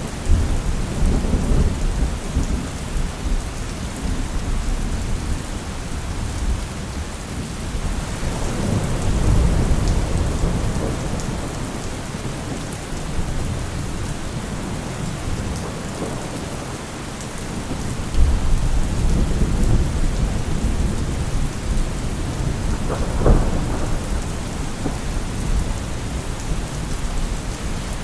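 Steady rain pouring, with rolls of thunder rumbling again and again, the heaviest about two-thirds of the way through.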